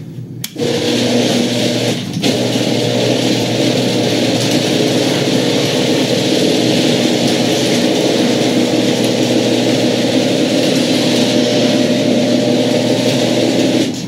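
Genie screw-drive garage door opener raising the sectional door: a steady motor hum that starts about half a second in, dips briefly about two seconds in, and cuts off near the end. It sounds fine, with no squeak while opening.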